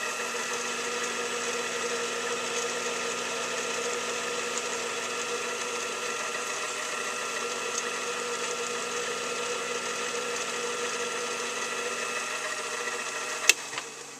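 Machine tool spindle running steadily under power while a 0.251-inch reamer is run through a bore, opening the hole a thousandth over quarter-inch. A sharp click comes near the end, and the running sound then drops away.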